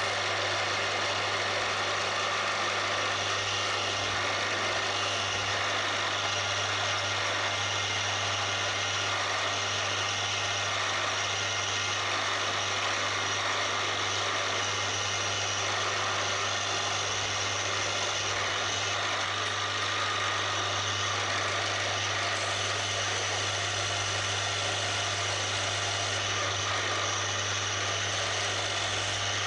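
Milling machine spindle running with a steady hum while a small drill bit is hand-fed into a metal bar, drilling tapping-size holes for M4 threads.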